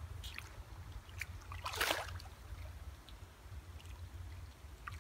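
Hooked carp splashing and thrashing at the surface of a pond while it is played toward the landing net, with one loud splash about two seconds in.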